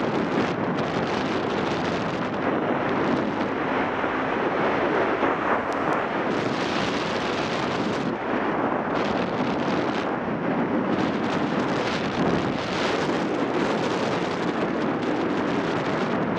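Wind rushing over the microphone of a camera on a moving motorcycle, with the Yamaha XTZ 750 Super Ténéré's engine running underneath.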